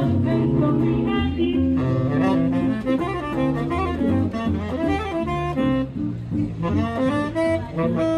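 Live jazz from a small band: a tenor saxophone plays a melody over electric guitar and upright bass.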